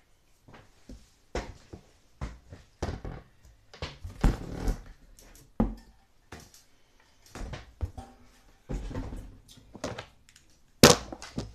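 Irregular knocks, bumps and rustling of hands working at a bathroom ceiling fan opening, with one sharp, loud knock near the end.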